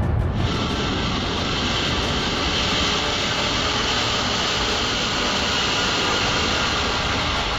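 Jet aircraft engine running, a steady dense rushing noise with a strong high hiss that comes in sharply about half a second in.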